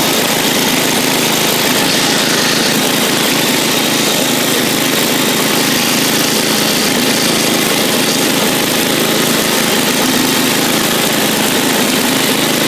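Bolens garden tractor engine running steadily while the tractor is driven along.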